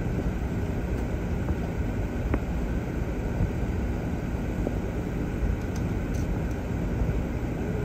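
Steady low background rumble, with one faint click about two and a half seconds in.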